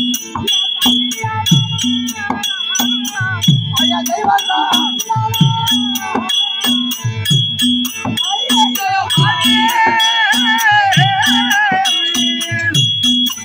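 Therukoothu accompaniment music: steady rhythmic drum strokes with a bright ringing metal percussion struck in time, like small hand cymbals. A wavering melodic line joins past the middle for a few seconds.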